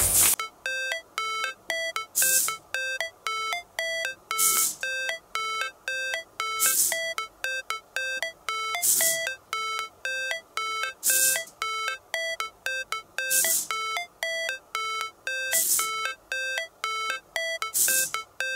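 Simple electronic outro music: a fast, repeating run of short bleeping notes, about three or four a second, with a hissy hit roughly every two seconds.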